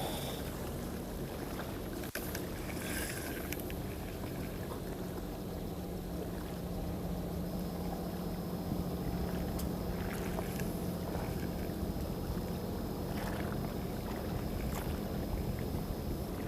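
Steady low engine hum, a little stronger in the middle, over an even background hiss, with a few faint clicks.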